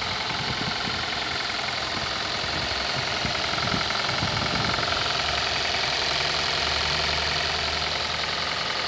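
2018 Kia Rio engine running steadily at idle with an even, repeating knock, which the owner presents as a knock in the engine.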